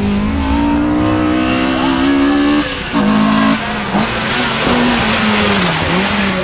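Honda Integra competition car's engine revving hard, its pitch climbing, breaking off briefly near three seconds, climbing again, then dipping low near the end. Tyres squeal through a slide in the second half.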